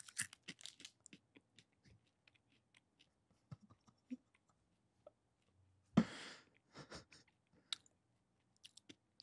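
A person chewing a dried cricket: a quick run of small crunches in the first second, then scattered single crunches, with one louder short burst of noise about six seconds in.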